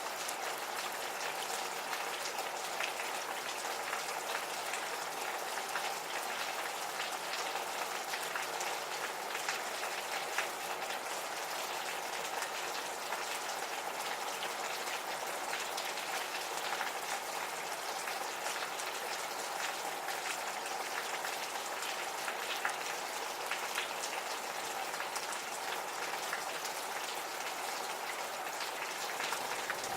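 Steady gentle rain, a continuous hiss scattered with many small drop ticks.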